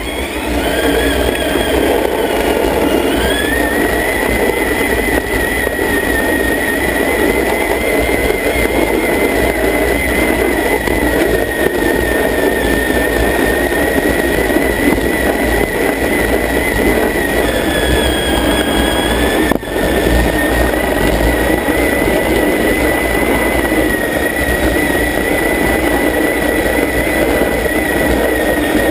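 Traxxas Summit RC truck's electric motor and gear drivetrain whining steadily under load while plowing snow, over a rough grinding noise. The whine drops in pitch for a moment about two-thirds of the way through, then comes back up.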